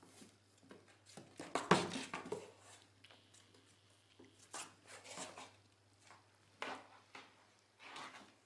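A cat's paws and claws scratching and scrabbling on a cardboard gift box, in irregular scuffs and knocks, the loudest burst about two seconds in.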